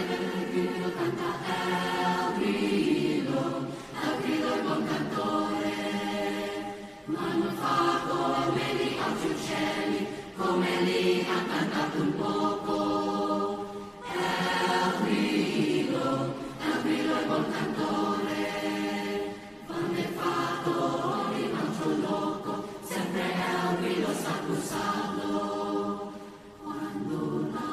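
Mixed choir of boys and girls singing in parts, in phrases of a few seconds each separated by short breaths.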